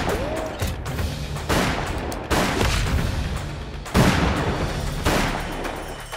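Gunfight gunshots from a lever-action rifle and a revolver: about five shots roughly a second apart, each with an echoing tail, the first followed by a brief whine. Dramatic background music plays underneath.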